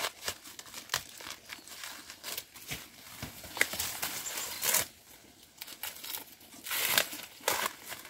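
Dry plant material rustling and crackling as it is handled, with irregular sharp snaps and tearing sounds, a louder cluster near the end.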